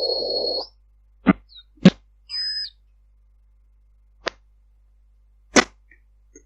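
Unexplained sounds on a Viber voice call. A steady high beep over a buzzing hiss cuts off just after the start. Then come four sharp clicks spread over the next few seconds, with a brief high tone between the second and third.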